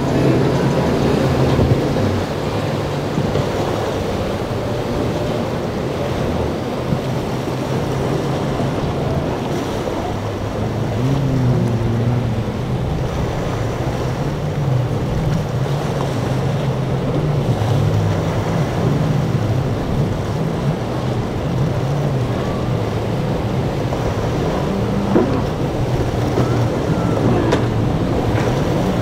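Outboard motors on center-console boats running through rough inlet water, the engine note rising and falling, over the wash of waves and spray and wind rumbling on the microphone.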